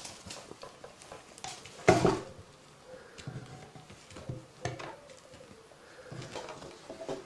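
Scattered rustling and light knocks of a kitten playing in and around a cardboard box of tissue paper and on a shaggy rug, with one louder knock about two seconds in.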